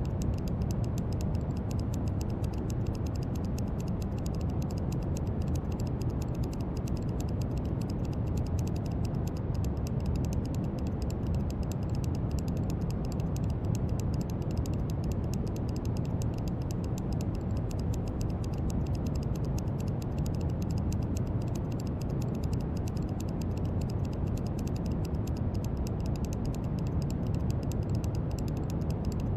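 Steady brown noise: an even, deep rushing hiss strongest in the low range and thinning toward the top, with a fine crackly texture in the highs.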